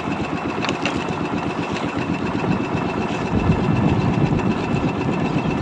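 Small fishing boat's engine running steadily with a fast pulsing beat, growing a little louder and fuller about three seconds in.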